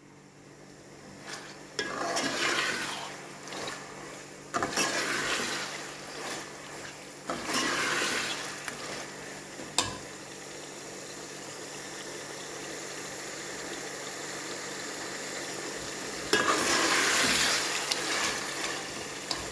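Boneless chicken pieces sizzling and bubbling in oily spiced masala in a steel pot at the bhuna (browning) stage, with a metal slotted spoon stirring and scraping through them in four louder bouts and one sharp clink near the middle.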